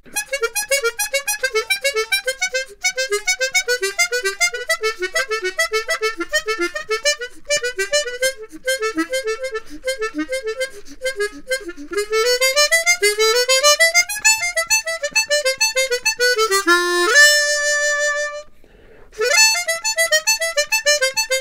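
Hohner ACE 48 12-hole chromatic harmonica played solo. It runs through fast strings of short notes, then climbs and falls in a quick run, holds a note, and breaks off briefly about three seconds from the end before the playing picks up again.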